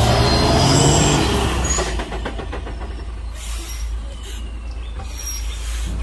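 Diesel engine of a semi-trailer truck labouring up a steep grade: a deep, loud engine drone for about two seconds, then quieter, rougher running.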